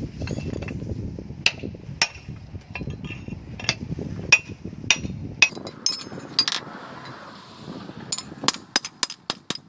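Hammer blows on hot steel at an anvil, a blacksmith working an old axe head, each strike ringing sharply. The blows are irregular at first and come in a quicker run near the end.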